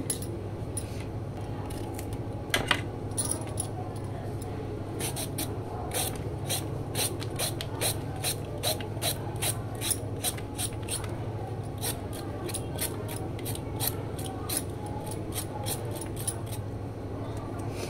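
Kitchen knife working on a cucumber over a plastic board: a single stroke, then from about five seconds in a run of short, quick scraping strokes, about two or three a second, over a steady low hum.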